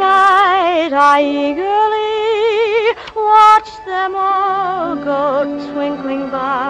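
Slow, lush orchestral film music: a sustained melody with heavy vibrato carried over several parts at once, with a brief louder swell about three and a half seconds in.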